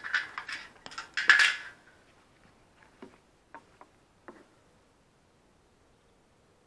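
Metal clicks and clinks of a key turning in a motorcycle's locking fuel filler cap and the cap flipping open, a quick cluster in the first two seconds, loudest about a second and a half in. A few single light knocks follow about three to four and a half seconds in.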